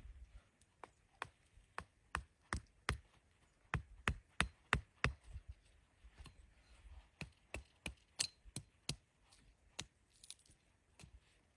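A long, irregular series of sharp knocks, like chopping, coming fastest, about three a second, around the middle.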